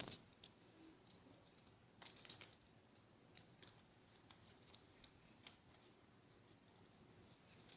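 Near silence: room tone with a few faint, scattered clicks and ticks, a small cluster of them about two seconds in.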